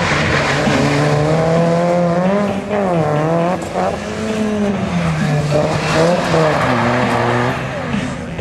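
Rally car driven hard through a slide, its engine revving up and dropping back repeatedly as the driver works the throttle, with the tyres skidding on the wet surface.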